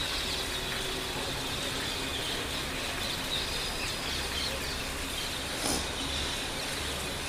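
Steady hiss of falling rain and running rainwater, with faint bird chirps over it.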